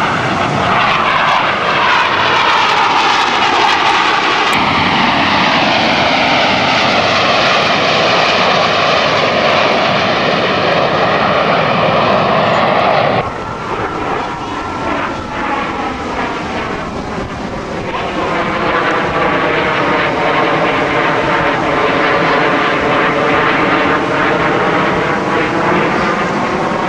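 Blue Angels F/A-18 Hornet jets flying past at an air show: a loud, swirling roar whose tone sweeps down and back up as the jets pass. The roar drops off suddenly about 13 seconds in, then builds again with a second sweeping pass near the end.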